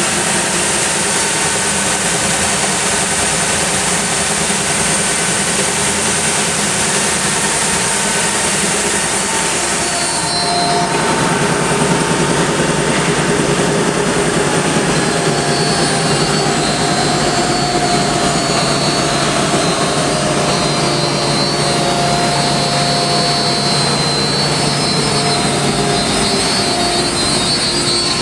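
Sandingmaster SA2200 36-inch two-head widebelt sander running with a loud, steady whir. About ten seconds in the sound changes: the hiss thins and a low hum and steady tones come up. In the second half some tones slide slowly down in pitch.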